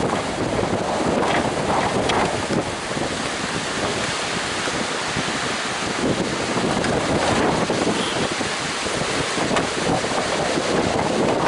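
Strong wind buffeting the microphone over the steady rush of heavy surf in stormy weather.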